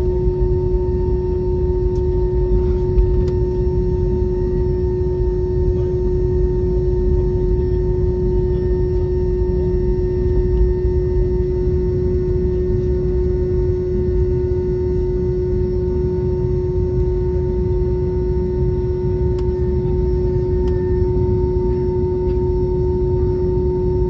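Airliner cabin noise while taxiing, heard from inside the cabin: a steady low rumble with a constant droning hum from the jet engines at idle.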